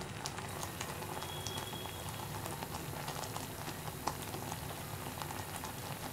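Jaggery syrup with coconut and peanuts boiling hard in a steel pot, a steady bubbling with many small pops. The syrup has reached thread stage (kambi paagu) and is still cooking toward hard-ball stage for candy.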